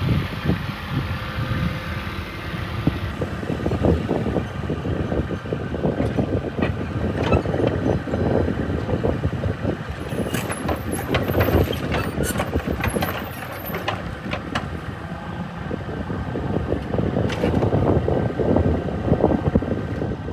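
Hitachi mini-excavator's diesel engine running steadily while the machine turns on its tracks and works its boom and bucket, with frequent metallic clanks and rattles from the moving parts.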